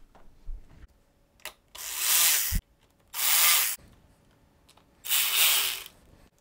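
Cordless electric ratchet with a T25 Torx socket running down the screws of a string trimmer's plastic engine cover, in three short runs of about half a second to a second each. The first run ends in a sharp clunk.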